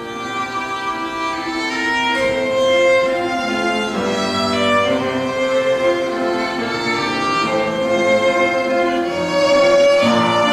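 Piano trio of violin, cello and piano playing classical chamber music, the violin prominent in long held notes that change every second or two.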